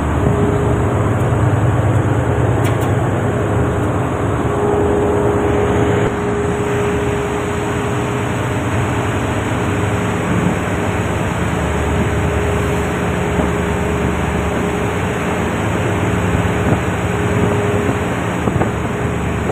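Roll-on/roll-off ferry under way: the ship's engines droning steadily, with wind and sea rushing past. A faint steady tone sits in the drone and fades out near the end.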